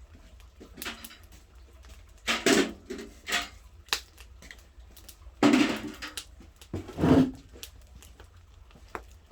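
A series of irregular knocks and clunks from hard objects being handled, the loudest about halfway through and again near the end.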